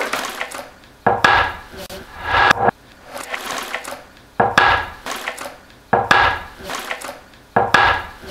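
A metal tin of hard-wax oil handled on a wooden tabletop: a series of about five knocks, each followed by a short scraping rush, coming roughly every second and a half.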